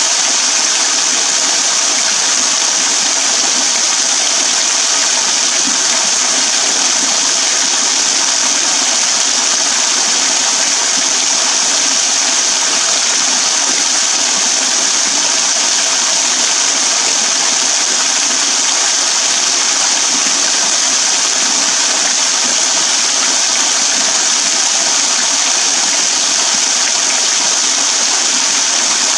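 Small waterfall: thin streams and drops of water falling off an overhanging rock ledge and splashing into a shallow pool below, a steady, unbroken splashing hiss.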